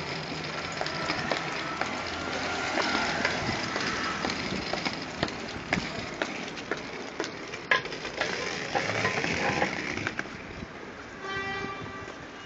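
Hard wheels of a rolling suitcase rumbling and rattling over pavement, with scattered clicks and knocks as they cross the joints.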